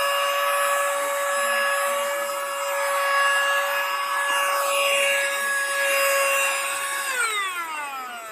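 Cordless handheld vacuum cleaner's motor running with a steady high whine and rushing air. It is switched off about seven seconds in, and the whine falls in pitch as the motor spins down.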